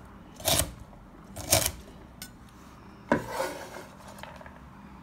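A cleaver blade scraping cut garlic scape pieces across a wooden cutting board: three short rasping sweeps, the last a little longer.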